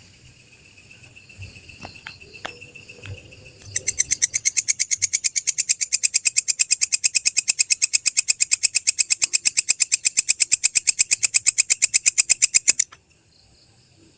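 Walang kecek (belalang kecek) grasshopper calling: a loud, fast, even train of sharp high chirps, about seven a second, starting about four seconds in and stopping abruptly near the end. Before it there is only a faint steady high tone and a few soft clicks.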